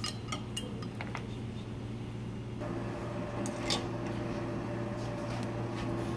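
A few light knife clicks against lamb rib bones and a plastic cutting board in the first second, over a steady kitchen hum. About two and a half seconds in, the hum gets fuller and steadier as a red bell pepper is held in tongs over a lit gas burner, with one faint click near four seconds.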